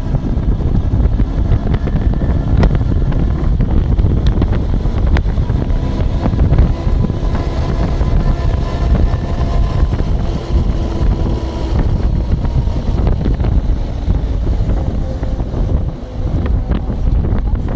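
Loud wind buffeting a phone's microphone in a moving car, a heavy low rumble that surges and dips. Faint steady tones of traffic sit underneath it.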